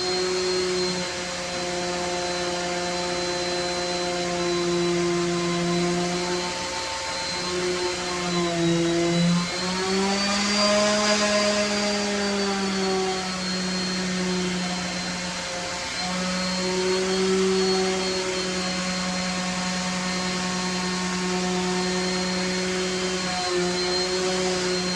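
An electric motor running steadily with a hum and a high whine. Its pitch dips briefly, then rises for a few seconds about ten seconds in before settling back.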